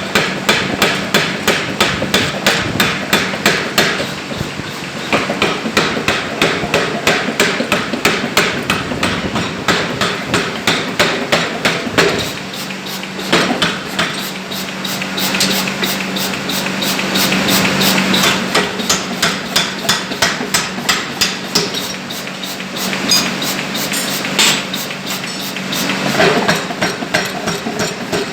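Alldays 1 cwt pneumatic power hammer forging a stainless steel ball, striking in quick runs of blows about three to four a second with short pauses between runs. A steady hum runs underneath.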